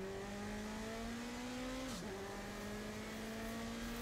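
Onboard sound of the Cheek C288's turbocharged Ford BDT four-cylinder racing engine under power. Its note rises slowly, dips briefly at a gear change about halfway through, then pulls on. The engine is running well short of its intended power.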